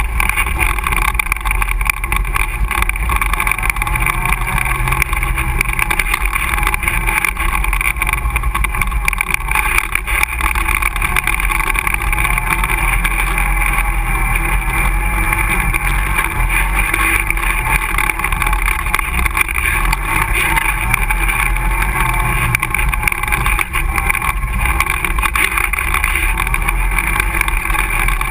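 ATV engine running steadily while the quad is ridden along a dirt trail, the engine note wavering slightly with the throttle.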